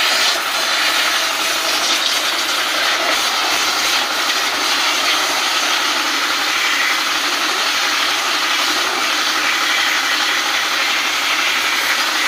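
Pressure-washer water jet spraying the finned coil of a window-type aircon, a loud steady hiss of water on metal fins.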